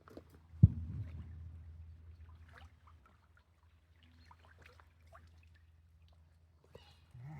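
A single sharp thump about two-thirds of a second in, its low rumble dying away over a second or so, followed by faint scattered clicks and rustles.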